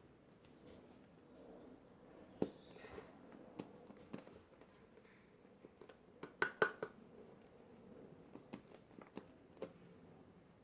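Faint scattered clicks and taps from a plastic glue bottle being handled and squeezed out over a mixing container, with a cluster of sharper taps about six seconds in.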